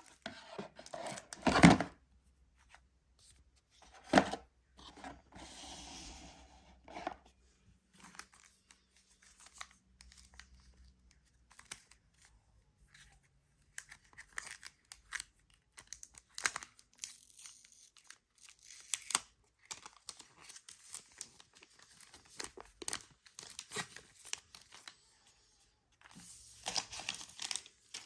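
Product packaging being opened and handled by hand: irregular tearing, crinkling and rustling, with scattered sharp clicks and knocks.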